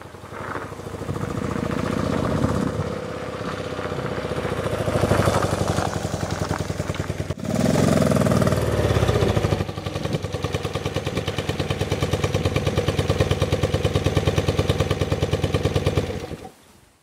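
Freshly rebuilt 1976 BMW R90/6 flat-twin boxer engine riding up close, its pitch rising and falling with the throttle. It then idles with an even beat and is shut off near the end.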